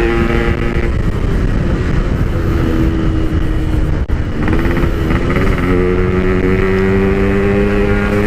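Yamaha RX-King's 135cc single-cylinder two-stroke engine through a Packing Power PK1 exhaust, heard from the rider's seat while under way, with a soft, mellow note. The engine note holds steady at first, is swamped by rushing noise in the middle with a brief dip about four seconds in, and settles back into a steady cruise note from about six seconds. Wind rumble runs underneath throughout.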